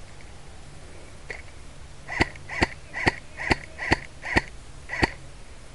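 Airsoft rifle firing single shots close by: a faint shot just over a second in, then seven sharp shots about two a second.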